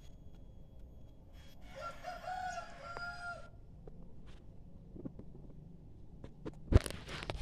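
A red junglefowl rooster crows once: a short crow of under two seconds that ends on a held note. A few sharp knocks follow near the end.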